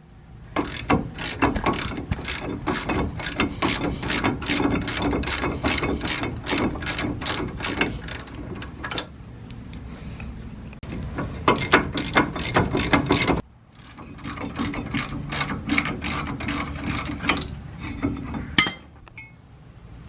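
Socket ratchet clicking steadily, about three clicks a second, in three runs with short pauses, as the torqued 18 mm caliper-bracket mounting bolts are backed out. A single sharp metallic clink near the end.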